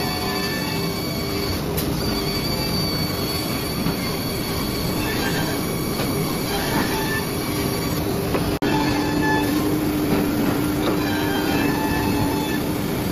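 HT-1325RS CNC router running, with a steady high squealing whine over continuous machining noise. The sound briefly cuts out about two-thirds of the way through.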